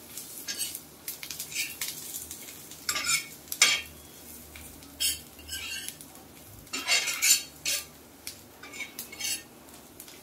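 Flat metal spatula scraping and clinking against an iron tawa while stirring garlic cloves with spices, in irregular strokes.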